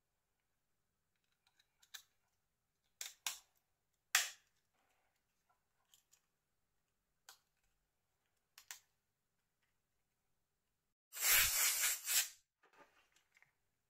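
Scattered sharp clicks and taps of small plastic phone-shell parts being handled and snapped together, the loudest about four seconds in. Near the end comes a louder scraping rustle lasting about a second, followed by a few faint clicks.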